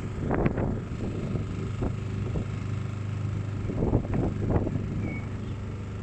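Small motor boat's engine running at a steady drone while under way, with wind buffeting the microphone in several short gusts.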